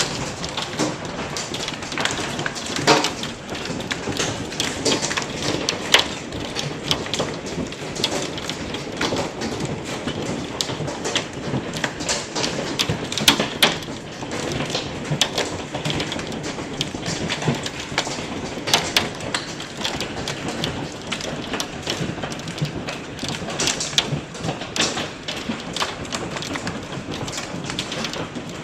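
Hailstorm: a dense, steady patter of falling hail with many sharp, irregular knocks of golf-ball-sized hailstones striking hard surfaces, a few much louder than the rest.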